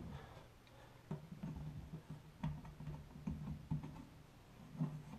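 A few faint clicks and light knocks, roughly a second apart, from a stainless steel basket strainer being held and twisted tight in a sink drain.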